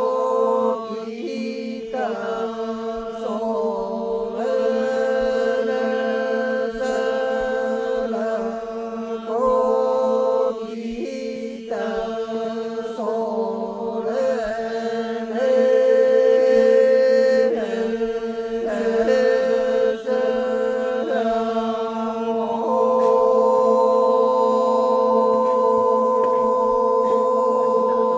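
Group of voices chanting the Torajan Manimbong: a steady low drone held without break under a melody line that shifts phrase by phrase every couple of seconds.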